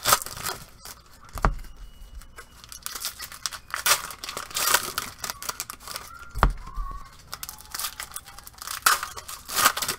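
Foil trading-card packs being torn open and crinkled by hand, in repeated short ripping and rustling bursts. Two dull thumps, at about a second and a half in and again at about six and a half seconds.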